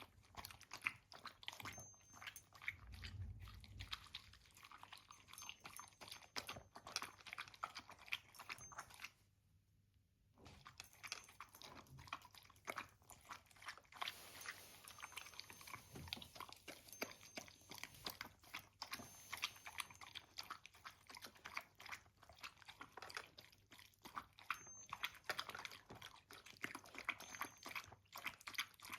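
A pet chewing and crunching its breakfast: a faint, quick run of crisp bites, broken by a pause of about a second roughly a third of the way in.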